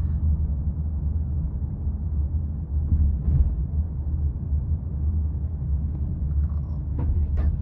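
Steady low road and tyre rumble inside the cabin of a moving Apollo Go electric robotaxi, with two faint clicks near the end.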